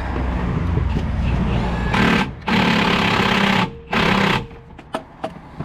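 Power tool run in three short bursts, the longest about a second, with a fast buzzing rattle, after a low rumble and followed by a few clicks.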